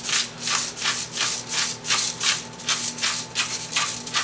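Hand-held pepper mill grinding black peppercorns: a steady run of short scratchy grinding strokes, about three a second.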